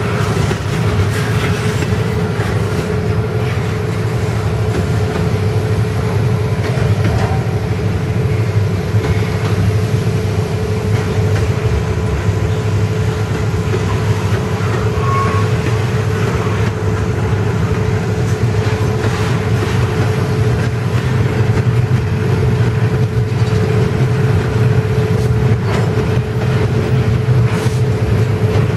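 Double-stack intermodal well cars rolling past close by: a steady rumble of steel wheels on rail with scattered clicks, and a steady tone running under it.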